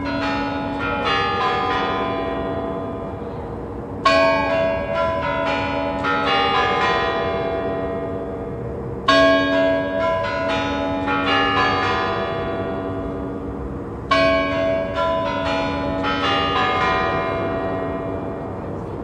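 Kremlin Spasskaya Tower clock chimes: a short melodic run of bell strikes, repeated about every five seconds, each run left ringing out.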